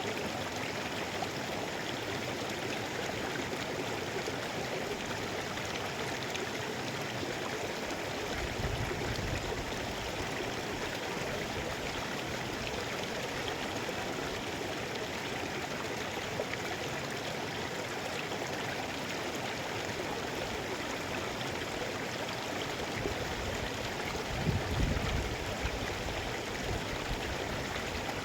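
Mountain river flowing: a steady, unbroken rush of water, with brief low rumbles about eight seconds in and again near the end.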